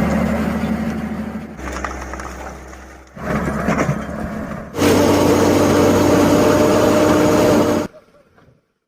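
Heavy machinery engine running loud and steady in several abruptly spliced segments, each starting and stopping suddenly, the last one cutting off about a second before the end.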